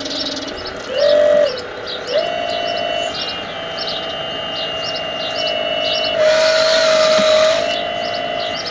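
Radio-controlled Hitachi 870 model excavator's motors whining at steady pitches that step up and down as it works, loudest about a second in and again near the end, with a hiss lasting over a second from about six seconds in. Birds chirp repeatedly in the background.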